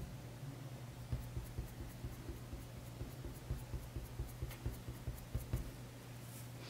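Coloured pencil scratching on drawing paper in quick short strokes, about four a second, as a small dark area is filled in, over a steady low hum.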